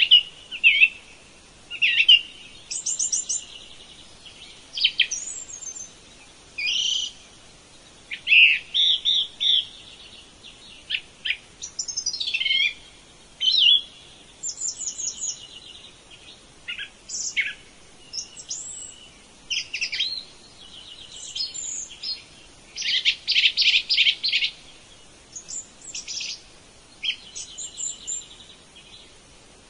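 Songbirds chirping and singing: a near-continuous string of short chirps, trills and fast runs of repeated high notes, with brief pauses between phrases.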